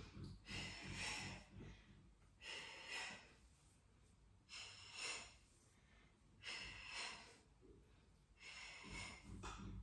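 A woman breathing faintly and rhythmically during a Pilates abdominal exercise, about one breath every two seconds, five in all.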